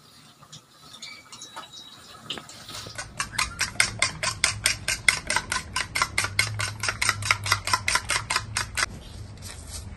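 An egg being beaten with a utensil in a small plastic bowl: rapid, even clicks of the utensil against the bowl, about six a second. The beating starts about three seconds in and stops near the end.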